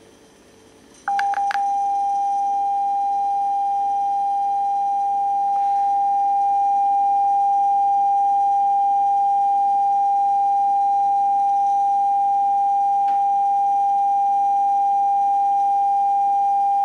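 Broadcast test-card tone, one steady pure tone accompanying a colour-bar test card, heard through the TV set. It comes in about a second in, after a moment of quiet and a couple of clicks as the channel changes.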